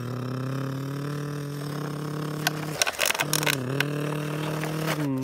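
A person's voice making a low, steady engine drone for a toy truck, breaking off briefly about three seconds in and dipping in pitch as it resumes. Sharp clicks of plastic toy pieces being handled come in the middle.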